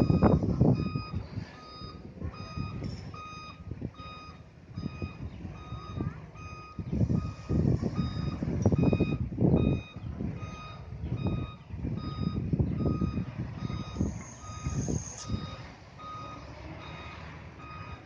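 Heavy truck's reversing alarm beeping about once a second over its diesel engine running, the engine swelling louder and softer as it works. There is a brief high hiss about fourteen seconds in.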